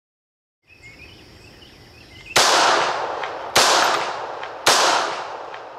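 Three shots from a Bersa Thunder 380 Plus pistol firing Hornady Critical Defense .380 ACP 90 gr rounds, about a second apart, each echoing away for most of a second.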